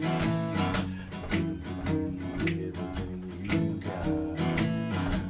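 Acoustic guitar strummed in a slinky rhythm between sung lines, several even strokes a second.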